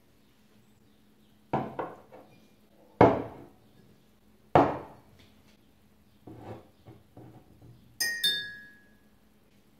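Glass tumblers cut from green glass bottles set down on a hard table one after another, each a short knock. Near the end a glass is tapped twice and rings briefly with a clear pitch.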